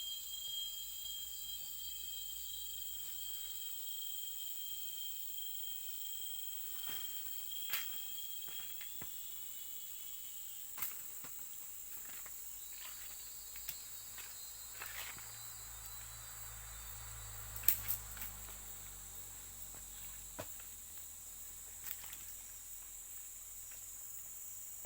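Insects chirring in a steady, high, continuous drone, with a few sharp clicks or snaps scattered through.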